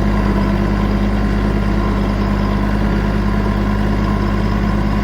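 Tractor engine running steadily at one constant speed.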